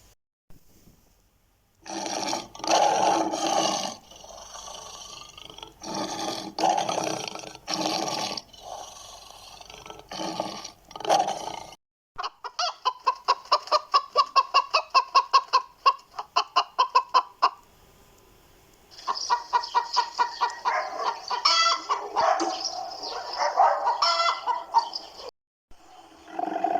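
Chickens clucking and calling, in a few separate recordings broken by short silences; the middle one is a fast, even run of clucks.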